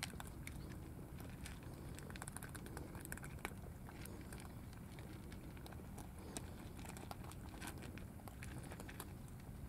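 Several cats eating from small dishes: faint, irregular crunching and clicking of chewing over a steady low rumble.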